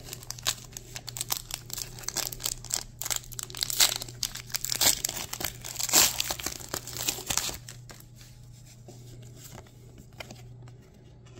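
Foil booster-pack wrapper of Pokémon trading cards crinkling and tearing as it is ripped open and the cards are pulled out: dense, sharp crackles that die away after about seven seconds.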